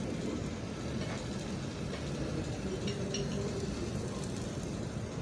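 Steady low background rumble with a few faint, brief clicks about one to three seconds in.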